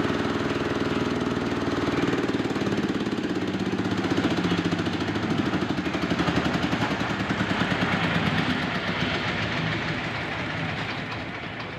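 Engine-driven SM10 corn sheller running, a steady engine drone with a fast pulsing beat, fading away near the end.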